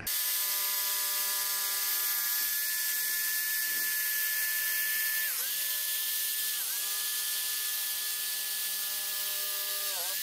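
Electric power tool running with a steady high motor whine as it cuts a wooden board; it comes on abruptly and its pitch dips briefly twice midway as it bites into the wood.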